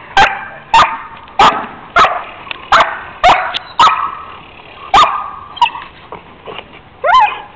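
Young German Shepherd barking at a decoy in protection training: a run of sharp, loud barks about every half-second, with a short gap before the last few, then a whining yelp near the end.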